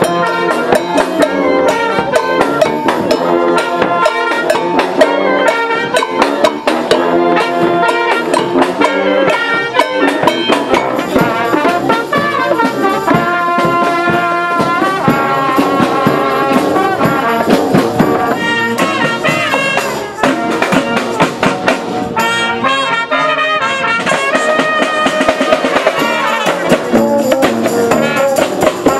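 Street brass band playing a lively tune: trumpets, trombone, clarinet and sousaphones over bass drum and snare drum. The brass thins out briefly about three-quarters of the way through, leaving mostly the drums, then comes back in.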